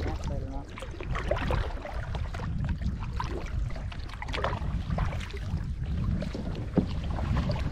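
Kayak being paddled across a lake: the paddle blades dip and splash at irregular moments and water trickles off them. A steady low rumble runs underneath.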